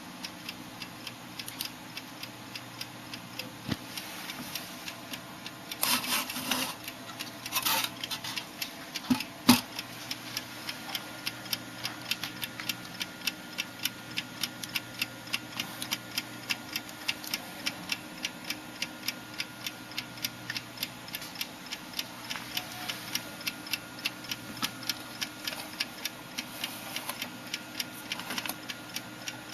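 Antique table alarm clock ticking steadily, with quick, evenly spaced ticks. A few louder knocks and noises stand out between about six and ten seconds in.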